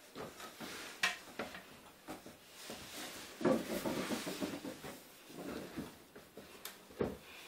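Irregular knocks, bumps and rustling as a person squeezes into a small box, clothing rubbing and limbs knocking against its walls, with a sharp knock about a second in and another near the end.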